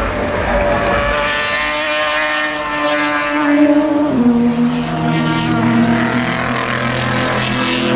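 Endurance race car engines running hard as cars pass on the circuit. The engine note steps down in pitch about four seconds in.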